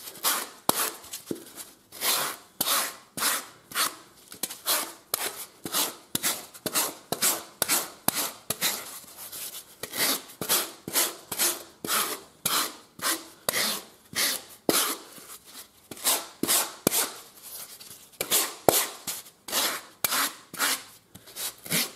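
Perforated shaver rasp scraping over a black foam knee roll in quick, even back-and-forth strokes, about two a second, to smooth the roughly shaped surface.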